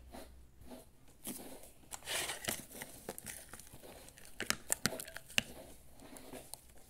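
Close rustling and crinkling handling noise, with a run of sharp clicks in the second half.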